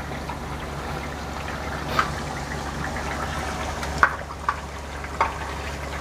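Hot oil sizzling and bubbling steadily in a kadhai as onions and spice paste fry. A few short clicks come from about two seconds in.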